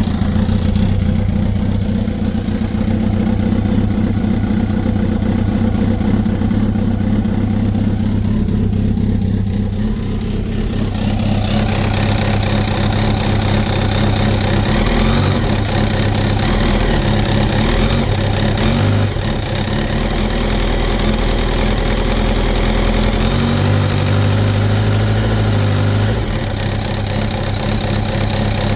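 2005 Kawasaki ZX-10R's inline-four engine running at idle with a knocking noise, which the owner suspects comes from the clutch basket's back springs rather than the generator.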